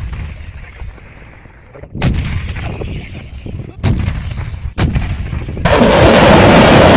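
Artillery guns firing: three heavy shots in turn, each followed by a rolling rumble. About five and a half seconds in, a loud continuous rushing noise sets in suddenly: a multiple rocket launcher salvo.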